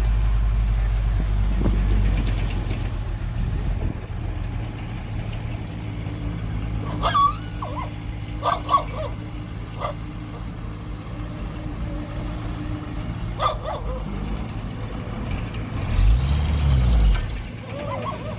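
Heavy machine's diesel engine running steadily, with a dog barking a few short times in the middle and the engine revving up and back down near the end.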